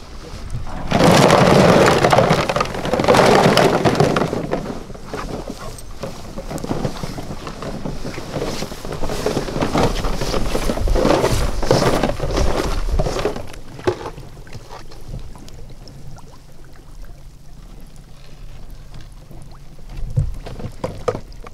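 Plastic duck decoys and gear rustling and knocking together as they are handled, loudest in the first few seconds, with irregular knocks going on until a steady low hum is left near the end.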